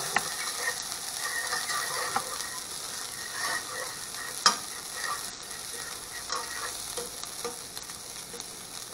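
Diced vegetables sizzling in a nonstick frying pan while a metal fork stirs them, scraping and clicking against the pan. One sharper tap about four and a half seconds in.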